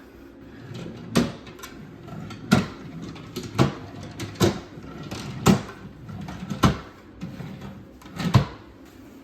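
Drawers and cupboard doors being opened and shut one after another, about seven sharp knocks spaced a second or so apart.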